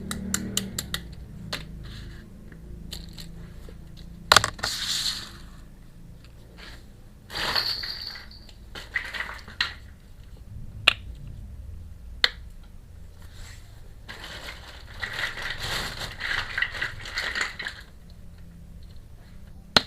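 Miniature steel toy kitchen pieces and their packaging being handled: scattered small clicks and clinks of little parts, with three stretches of rustling, the longest about fifteen to eighteen seconds in.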